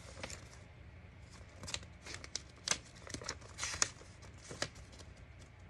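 Folded paper sheet being unfolded and handled: soft rustling with a few sharper crinkles scattered through.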